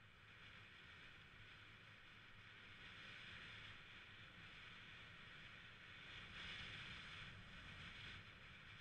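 Faint, muffled running noise of a Yamaha 125cc scooter on the move: a steady hiss of wind and engine with a low rumble, swelling slightly about six seconds in.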